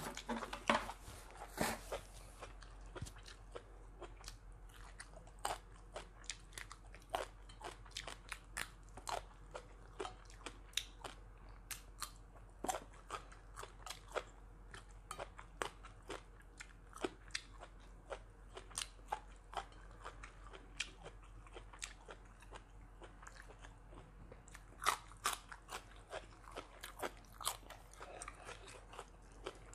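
A person chewing food close to the microphone: short crunching and smacking clicks, about one or two a second, a little louder near the end.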